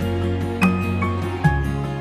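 Background music: a soft instrumental with sustained notes over a bass line, and bell-like notes struck a few times.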